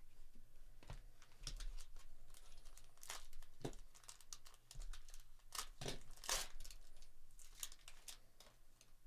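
Foil trading-card pack wrapper crinkling and tearing as a pack is opened by hand, with cards being handled: a run of irregular crackles.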